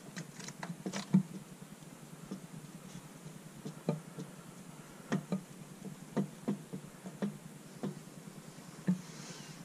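Irregular sharp knocks and clicks of metal as a pry bar works at the lower intake manifold of a Buick 3.8-litre V6, rocking it against the engine; the manifold is stuck and does not come free. The loudest knocks come about a second in and near the end.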